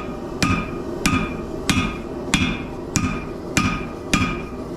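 A 4-pound hand hammer striking a Damascus steel billet on an anvil during forging. There are seven blows at a steady pace of a little under two a second, each with a short metallic ring.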